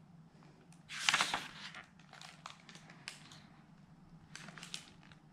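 A page of a picture book being turned: paper rustling, with one louder swish about a second in, then a few soft crinkles and taps as the page settles.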